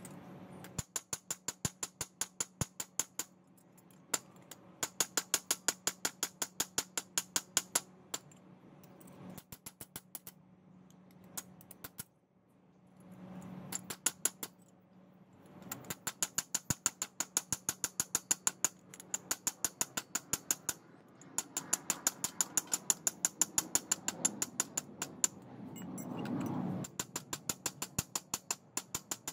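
Small hammer tapping a thin steel strip on the anvil of a bench vise: rapid ringing metal-on-metal taps, about five a second, in runs of a few seconds with short pauses between.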